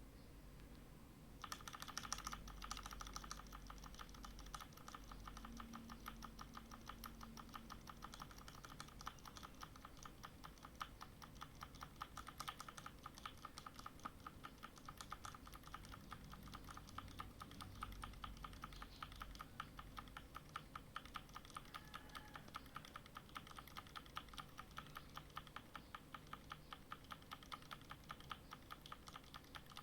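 Tecware Spectre Pro mechanical keyboard with brown switches, keys clicking rapidly and repeatedly from about a second and a half in, several strokes a second. The keys are being tested for a faulty key that fails to register.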